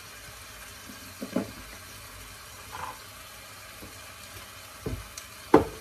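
Faint steady sizzling of glass noodles and carrots frying in a pan, broken by a few brief knocks, with a sharp thump near the end.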